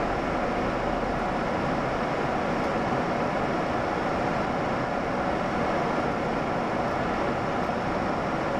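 Steady wind rush and electric motor and propeller noise heard from on board a Volantex Ranger G2 RC plane in steady flight.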